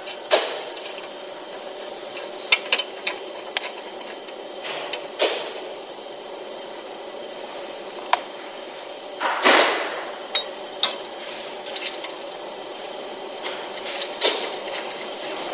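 Scattered sharp metal clicks and knocks of a cylindrical sensor and its bracket being handled and fitted on a bottle filling machine, over a steady hum.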